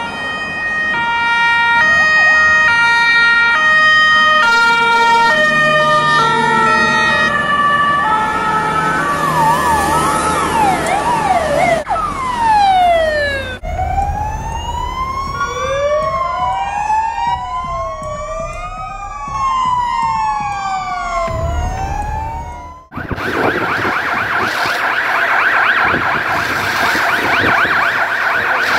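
Azerbaijani fire truck sirens in a series of cuts: first a stepped pattern of alternating high and low tones, then a fast warbling yelp and a single falling sweep. Next come several wailing sirens rising and falling over each other, and from about 23 seconds in a harsh, rapidly pulsing siren.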